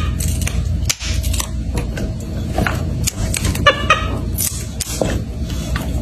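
Crisp clicks and snips of fresh green beans being trimmed over a steady low hum, with a short high squeak a little under four seconds in.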